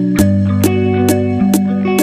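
Instrumental background music: held bass notes under short picked notes, with a steady beat of sharp hits about twice a second.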